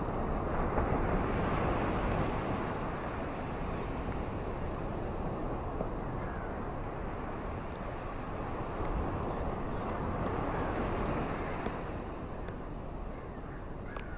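Steady rushing of wind and water in the rain, swelling about a second in and again around ten seconds in.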